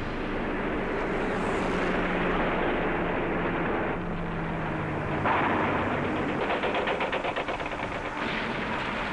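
Droning engines of WWII fighter planes in a dogfight. About halfway through, long bursts of rapid gunfire break in.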